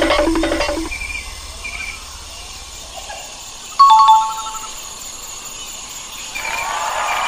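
Guitar background music ends about a second in. Near the middle comes a loud, short two-note "correct answer" chime, falling in pitch. Near the end a crowd starts cheering.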